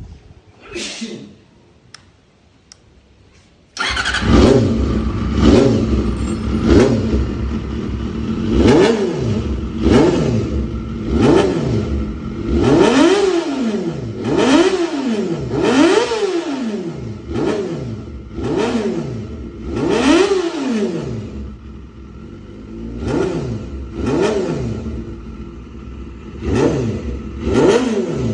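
Honda CBR motorcycle engine running through an aftermarket Chinese WRS-style exhaust. The engine comes in abruptly about four seconds in, then the throttle is blipped over and over, revs rising and falling about every one and a half seconds.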